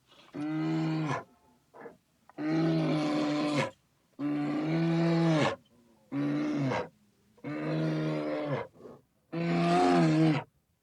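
A bear calling: six long calls in a row, each a second or so long, held at a steady pitch and dropping at the end, with short pauses between them.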